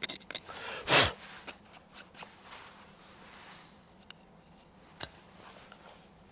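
Knife carving a wooden spoon: one loud shaving cut about a second in, then quieter scrapes and a few light clicks of the blade on the wood.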